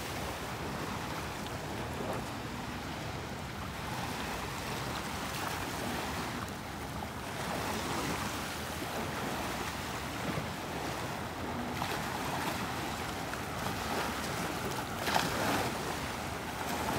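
Low surf washing onto a sandy beach, with steady wind noise; one wave washes in a little louder near the end.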